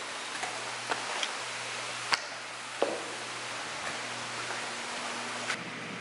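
Water pouring down a stepped fountain wall into a pebble pool: a steady splashing rush, with a few sharper splashes or clicks in the first three seconds.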